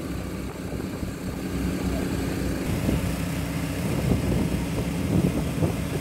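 A ship's engine running with a steady hum, with people talking in the background.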